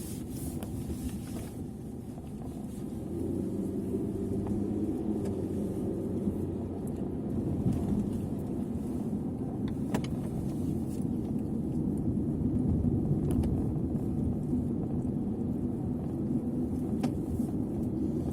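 Car cabin noise while driving: a steady low rumble of road and engine that gets louder about three seconds in, with a few faint ticks.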